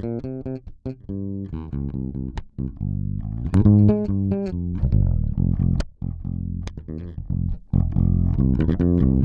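A recorded plucked bass line with a strong low end, played back through a Great River PWM-501 500-series compressor while its attack and ratio settings are being turned, so the compression changes as it plays.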